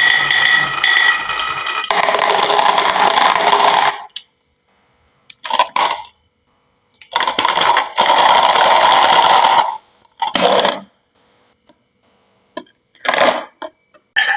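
Glass marbles rolling and clattering down a wooden marble-run slope, in several separate bursts of rattling broken by sudden silences. Music plays for the first two seconds.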